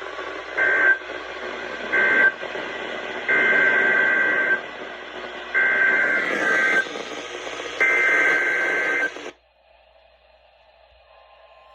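NOAA Weather Radio static hiss broken by warbling two-tone SAME digital data bursts: two short end-of-message bursts close the tornado warning, then three longer header bursts announce the next alert, a flash flood emergency. The static cuts off about nine seconds in, and a faint steady tone starts near the end.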